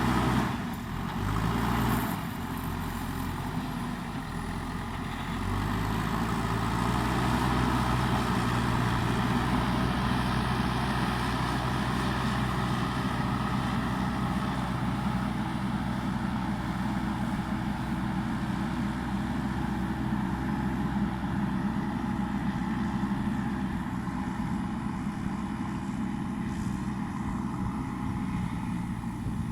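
Diesel engine of a JCB backhoe loader running, easing off in the first few seconds and picking up again about five seconds in, then running steadily.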